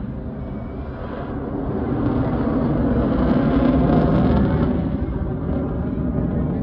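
Rumble of a jet aircraft passing, building up about a second in, loudest around four seconds, then easing off.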